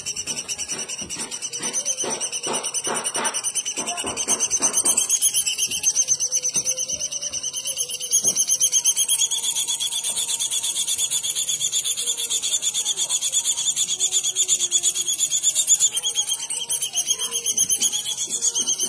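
A bird's continuous high-pitched buzzing trill made of fast, even pulses. A burst of lower, rapid chattering notes comes in the first few seconds.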